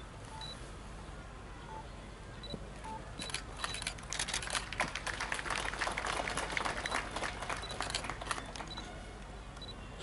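Scattered clapping that starts about three seconds in and dies away near the end, over a faint hiss with a few short high beeps.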